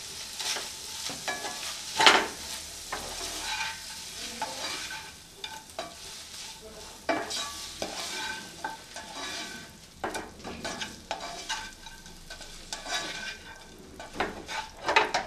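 Spiced chicken strips frying in butter in a non-stick pan and being stirred and turned with a slotted spatula: a light sizzle under irregular scraping strokes, the loudest about two seconds in.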